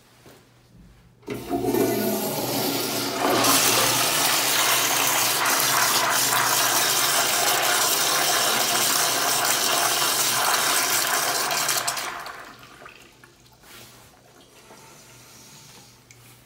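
Commercial toilet flushing through its exposed chrome flushometer valve: a loud rush of water starts about a second in, grows louder a couple of seconds later and runs steadily for about nine seconds, then dies away to a faint trickle.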